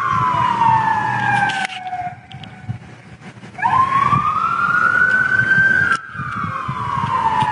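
Emergency siren wailing: its pitch slides slowly down, goes quiet briefly, climbs again from about halfway through, then slides down once more near the end.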